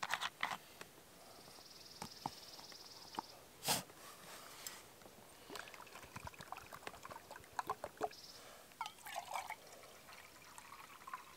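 Water poured from a plastic bottle into a collapsible plastic cup and then into a small metal cook pot, faint trickling among small plastic clicks and handling knocks, with one sharper click a little under four seconds in.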